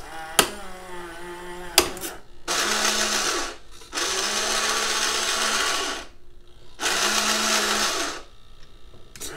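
Battery-powered ladder gearbox motors of a toy Tonka fire truck whirring in three runs, about one, two and one and a half seconds long, as micro servos flip its three-way switches to raise and rotate the ladder. Two sharp clicks come in the first two seconds.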